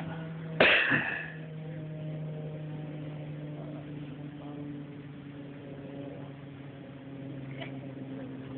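A motor running steadily, its pitch dropping about a second in. Just before the drop, a brief loud burst of noise.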